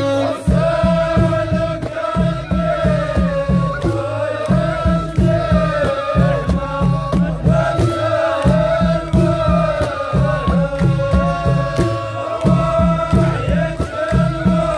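Live folk song: men singing a chanted melody over an even drumbeat of about four strokes a second, with hand clapping.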